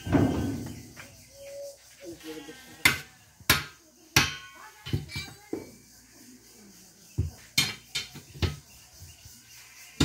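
A heavy thump at the start, then a run of separate sharp metal clanks and knocks as steel tyre levers and a sledgehammer work against the steel rim of a truck-size tyre, prying the tyre off the rim.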